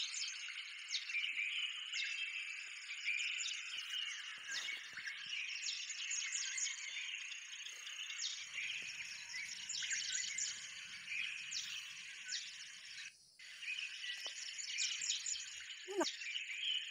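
Dense chorus of many small birds chirping and calling continuously. It breaks off abruptly for a moment about three-quarters of the way through, then resumes.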